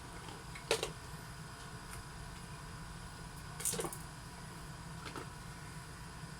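Objects being handled while rummaging: two short sharp clicks, about a second in and near four seconds, and a fainter one a little after five seconds, over a steady low hum.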